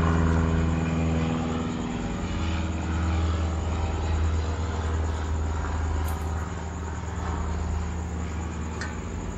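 Small portable generator's gasoline engine running steadily, with hydrogen-oxygen (HHO) gas from an electrolyzer fed into its intake; its steady note wavers briefly about a second and a half in.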